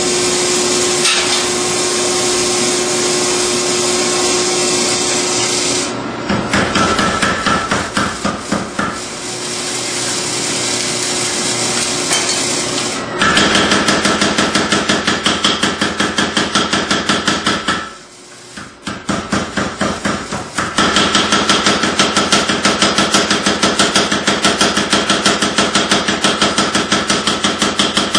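A forge runs with a steady rushing noise. Then a mechanical power hammer pounds red-hot steel knife stock in runs of rapid, evenly spaced blows, with short pauses between the runs.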